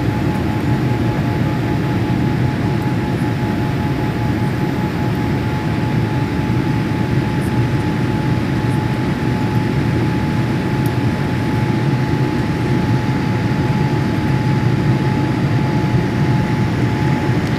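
Steady cabin noise of a Boeing 787 Dreamliner in its climb after takeoff: an even low rumble of engines and rushing air, with a faint steady tone above it.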